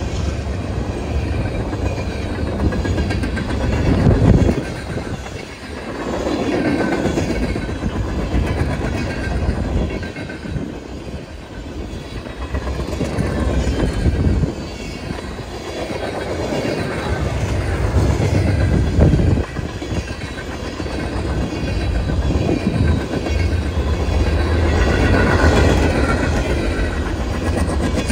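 Freight cars of a CSX manifest train (tank cars, boxcars, gondolas) rolling past at speed: a heavy, continuous rumble of steel wheels on rail that swells and dips as the cars go by, with wheels clicking over the rail joints and a faint wheel squeal near the end.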